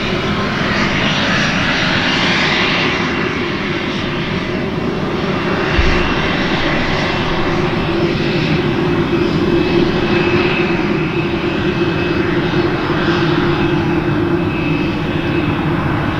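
Cirrus SF50 Vision Jet's single Williams FJ33 turbofan running at low taxi power: a steady whine with a thin high tone over a rushing hiss. A brief low thump about six seconds in.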